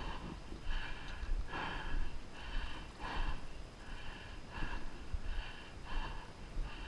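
A person breathing hard and fast, quick short breaths repeating evenly about once every 0.7 seconds.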